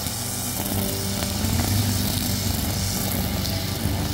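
Engine-driven brush cutter with a nylon line head running at a steady working speed, its line cutting grass.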